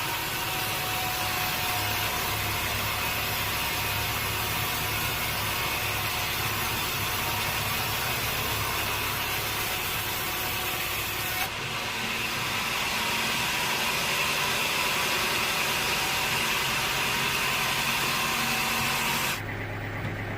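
Sawmill saw cutting through a teak log, a steady hiss over the low hum of the mill's engine. About a second before the end the cutting noise stops abruptly and the engine keeps running.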